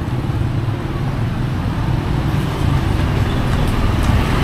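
Street traffic with vehicle engines running close by, a steady low hum.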